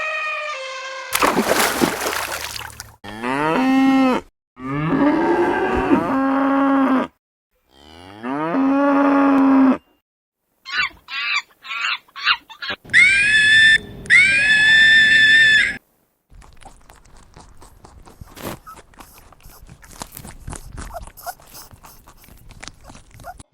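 A run of animal calls, among them cattle mooing. A noisy burst comes about a second in, then three long pitched calls between about 3 and 10 seconds, short clipped calls, two high drawn-out calls around 13 to 16 seconds, and faint crackling to the end.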